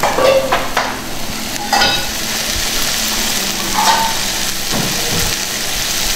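Meat in thick masala sizzling and frying in oil in an iron kadhai over a gas flame, with a steel ladle clinking and scraping against the pan a few times.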